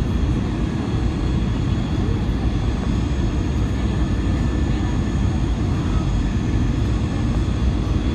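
Steady cabin noise inside an Airbus A320 on approach: its jet engines and the airflow make a constant low rumble, with a faint high whine over it.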